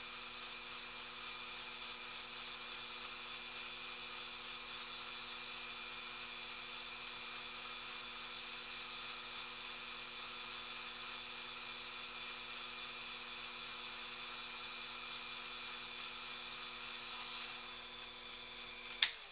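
Small bench lathe running steadily, its motor and drive giving an even high whine. Near the end a sharp click as it is switched off, and the whine winds down.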